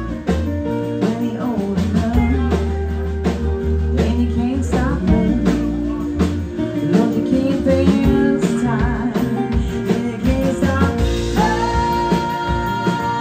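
Live country band playing an instrumental break with a steady drum beat. Near the end a female singer comes back in with a long held high note.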